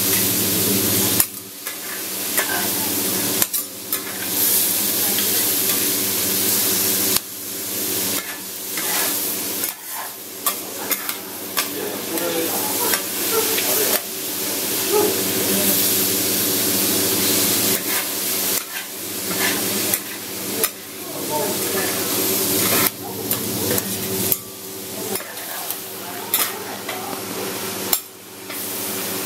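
Horumon yaki udon (offal, udon noodles and cabbage) frying on a flat iron teppan griddle: a loud sizzle, with metal spatulas scraping and clacking against the griddle as the noodles are tossed and chopped. The sizzle drops away briefly several times, and a steady low hum runs underneath.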